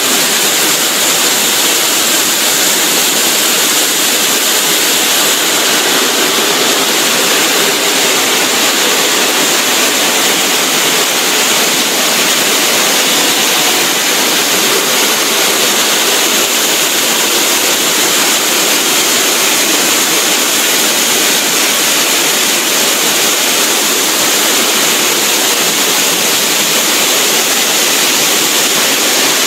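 QSQ-2200 multi-blade stone block cutter's large circular saw blade sawing through a stone block under a water-cooling spray: a steady, loud rushing noise that does not change.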